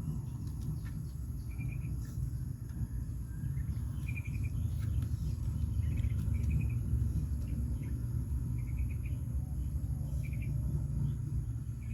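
Outdoor ambience: a steady high insect drone, with short trilling chirps about every two seconds, over a steady low rumble.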